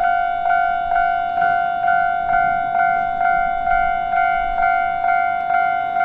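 Japanese level-crossing warning bell ringing a steady, evenly repeated clang, a little over two strikes a second, each dying away before the next. It is the crossing's alarm that a train is approaching.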